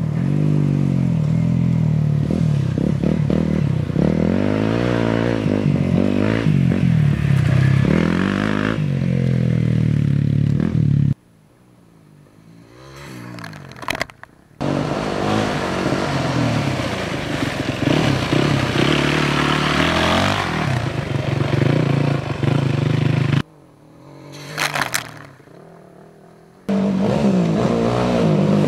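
Off-road motorcycle engines revving, the pitch repeatedly climbing and dropping as the riders work the throttle and gears. Twice, about halfway and again near the end, the sound falls away abruptly for a few seconds to a faint rising engine note of a distant bike, then comes back loud.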